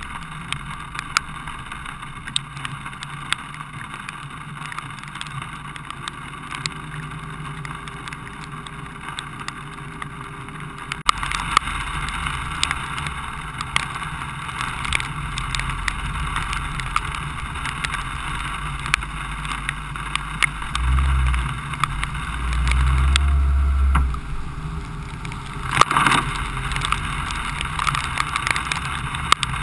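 A car driving through wet streets in rain: steady engine and tyre noise with many scattered sharp ticks, as of raindrops hitting the camera. The noise steps up about a third of the way in, and heavy low rumbles come a little after two-thirds of the way through, followed by a short loud burst.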